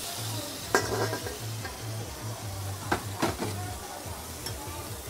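Lobster sizzling on a hot flat-top steel griddle, with sharp clanks of metal cookware on the steel plate: one about three-quarters of a second in and two close together around three seconds in.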